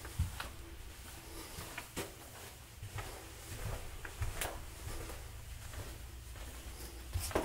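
Footsteps and light knocks, irregular, roughly one a second, with a sharper knock near the end, over a steady low hum inside a ship's corridor.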